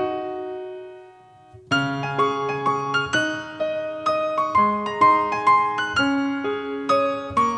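Background piano music. A phrase dies away about a second in, and after a short pause the piano starts again with a steady run of single notes.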